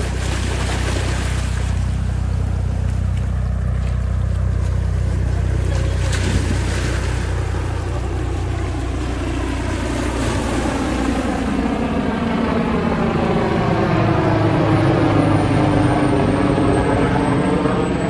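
Motorboat engine running steadily. From about two-thirds in, the engine's pitch bends and sweeps, as a moving engine does when it passes.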